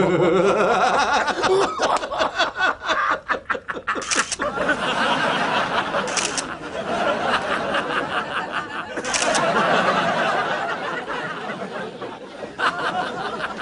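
Rapid camera shutter clicks with excited squealing and giggling voices; a flurry of clicks in the first few seconds, then brief sharp bursts about 4, 6 and 9 seconds in.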